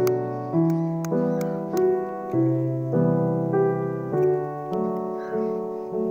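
Background music: a gentle piano or keyboard melody, a new chord every half second or so, with a few faint clicks.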